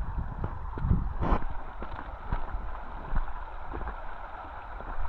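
Footsteps on creek-bed rocks, irregular knocks and scuffs, over the steady rush of a small stream.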